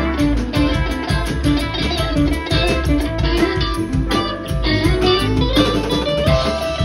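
Live rock band playing an instrumental jam: two electric guitars playing lead lines over bass and drums.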